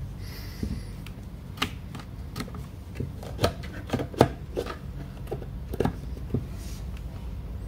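Light handling clicks and taps, about a dozen at irregular spacing, over a steady low hum.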